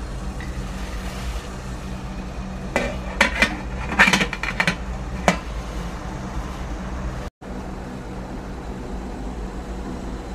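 Stainless steel lid being set onto an idli steamer pot: a few sharp metal clinks and clatters about three to five seconds in. Under it runs a steady low rush from the gas burner heating the pot.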